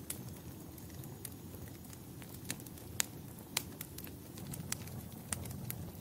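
Wood fire crackling in a fireplace: a low, steady rumble of flame with scattered sharp pops, the loudest about halfway through.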